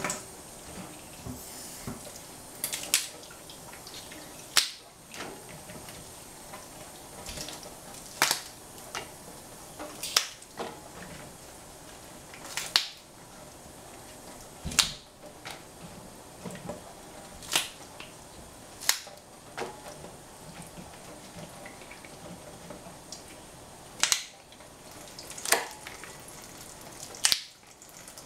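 Crisp fresh snow pea pods being snapped into pieces by hand, one sharp snap every second or two at an uneven pace.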